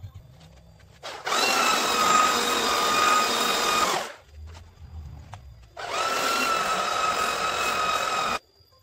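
Electric hand planer running and cutting along the wooden top of a homemade table saw in two passes of about three seconds each, each with a steady high whine over the cutting noise; the second pass cuts off abruptly. The top is being planed flat because it has warped from expansion.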